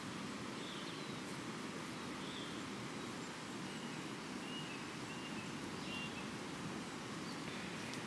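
Steady rushing of a river flowing past, with a few short high bird calls in the middle.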